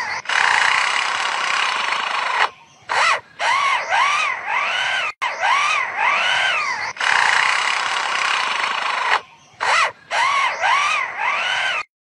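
A lyrebird mimicking an electric drill. It gives stretches of whirring with a whine that rises and falls over and over, broken by a few short pauses, and stops just before the end.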